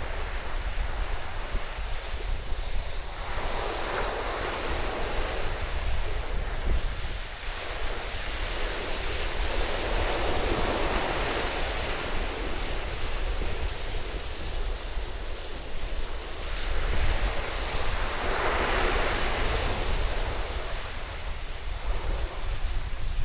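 Surf washing up on a sandy beach, swelling and fading over a few seconds each time, about four washes. Strong wind buffets the microphone as a steady low rumble underneath.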